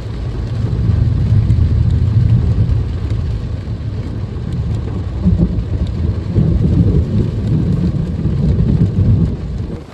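Thunder rumbling over heavy rain, the rumble swelling about a second in and again after about five seconds, then easing off near the end.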